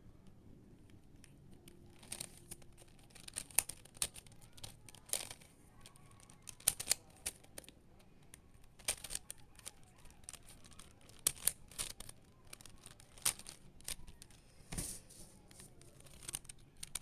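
A Rubik's-style puzzle cube being turned by hand: irregular plastic clicks and short scrapes as the layers are twisted, in quick bunches with brief pauses between them.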